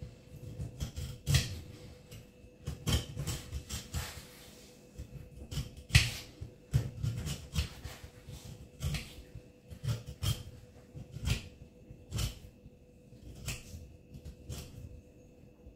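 Boning knife cutting and scraping along the rib bones of a raw pork belly on a stainless-steel table, making irregular clicks and knocks with dull thumps as the meat is handled. A faint steady hum runs underneath.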